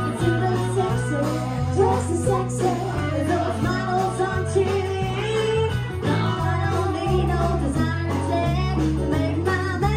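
A woman singing a country song live into a microphone over amplified guitar-led backing, with a bass line stepping from note to note under the vocal.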